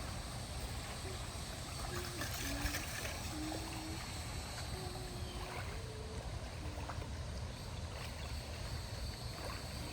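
Steady rush of flowing water under a constant outdoor background, with faint short tones, like distant voices or calls, now and then.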